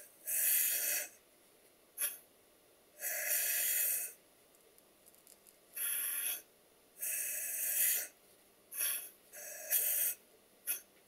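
Compressed air hissing out of a Stuart Double 10V twin-cylinder model steam engine in irregular puffs as its crankshaft is rotated slowly, most puffs about a second long with a few short ones between. One valve exhausts cleanly with a bit of a chop while the other wheezes at both ends of the stroke: a problem with the valve events.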